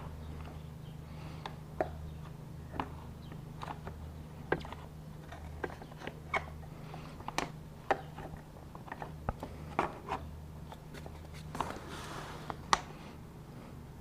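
Irregular small clicks and knocks of parts and hand tools being handled while motorcycle body panels and bolts are refitted, over a steady low hum.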